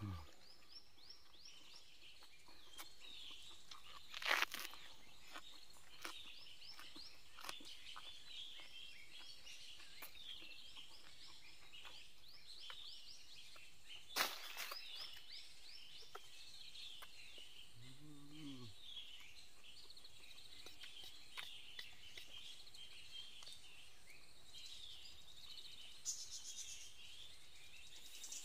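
Small birds chirping continuously in forest. There are sharp dry crackles at about four and fourteen seconds, a few lighter clicks, and a brief low hum near the middle.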